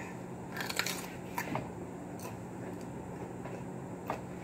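Quiet room tone with a low hum and a few short, faint clicks scattered through it, the most clustered just under a second in.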